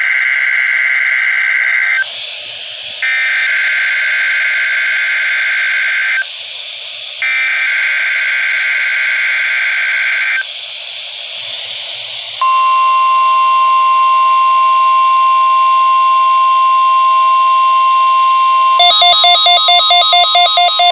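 NOAA Weather Radio weekly alarm test: three bursts of screeching SAME digital header data, each about three seconds long with a second's pause between, the first already under way. About twelve seconds in comes the steady 1050 Hz warning alarm tone, which weather radio receivers respond to. Near the end a louder, rough buzz joins the tone for its last two seconds.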